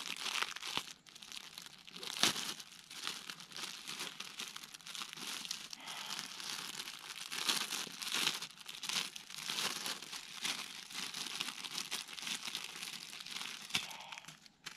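Plastic packaging crinkling and rustling as it is handled and opened, a near-continuous run of crackles with short pauses.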